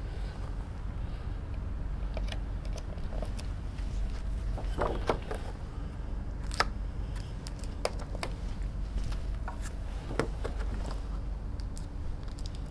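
Laminated picture cards being handled and pressed onto a whiteboard: scattered light taps, clicks and rustles, a few at a time, over a steady low hum.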